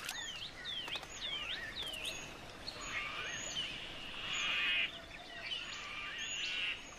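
Birds calling: a run of quick down-slurred whistles, about two a second, then a buzzy trill a few seconds in, over faint outdoor background hiss.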